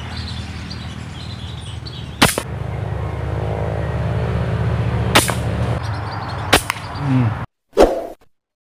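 Three sharp cracks of a toy gun firing, about two seconds in, five seconds in and again a second and a half later, over a steady low hum. Near the end the sound cuts off abruptly and a short separate sound effect follows.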